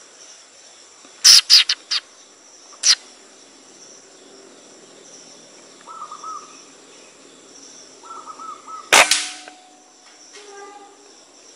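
Steady high-pitched insect trilling over the forest, with two short runs of bird chirps. A few sharp clicks come a little over a second in, and one loud sharp crack comes near the end.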